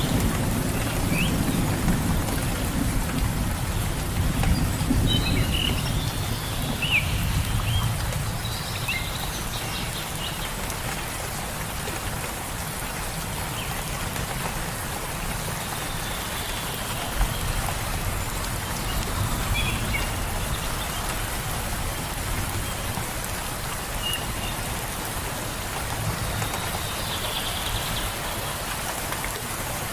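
Steady rain falling. A low rumble of thunder fades away over the first several seconds, and short bird chirps come and go now and then.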